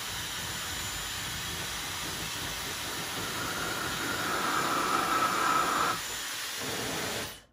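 Dyson Supersonic hair dryer running, a steady rush of blown air that grows louder for a couple of seconds in the middle, eases off, then stops abruptly near the end.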